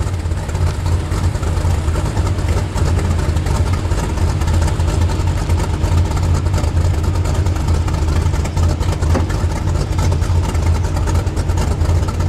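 Lifted 4x4 truck engines running at a steady low rumble while a lifted Chevrolet pickup on large mud tires crawls through deep snow.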